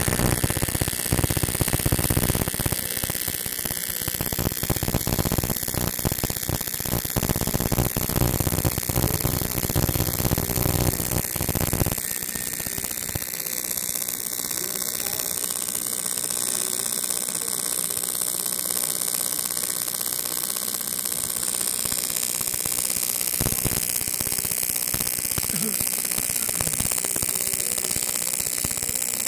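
AC TIG welding arc on aluminium buzzing and hissing steadily, with a denser crackle for the first dozen seconds. The sound changes about twelve seconds in and again near the end.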